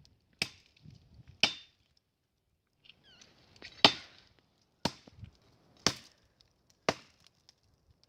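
Chopping blows into the wood of a tree being felled: six sharp strokes, about one a second, with a pause of about two seconds after the second stroke.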